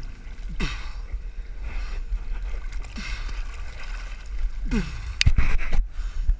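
Water splashing and sloshing against the hull of a capsized Laser dinghy, over a steady low wind rumble on the microphone. A few sharp knocks come about five seconds in, the loudest sounds here.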